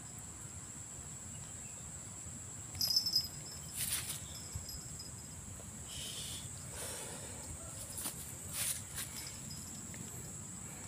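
Steady high-pitched chirring of insects at a single pitch, with a few short rustles and knocks as a freshly caught fish is handled and taken off the hook.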